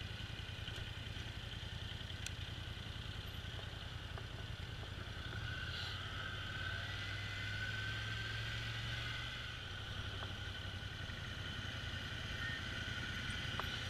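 Polaris Sportsman ATV engine running steadily at low trail speed, a low pulsing drone with a higher whine above it that rises a little in the middle and eases off. A few faint clicks come from the machine rattling over rock.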